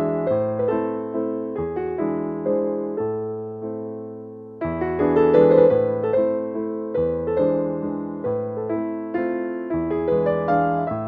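Background piano music: struck notes and chords that fade after each stroke. The phrase dies down about four and a half seconds in, then a new, louder phrase begins.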